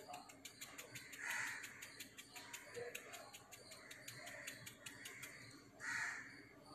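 Faint bird calls, twice: once about a second in and again near the end, over a quiet background with a fast, faint ticking.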